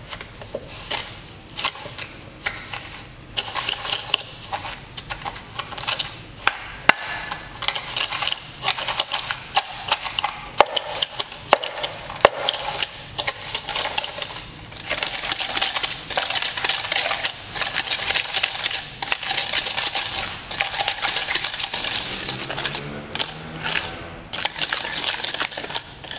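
Wire balloon whisk beating butter and palm sugar by hand in a stainless steel bowl: a fast, continuous run of clicking and scraping as the wires strike and drag against the metal, creaming the mixture.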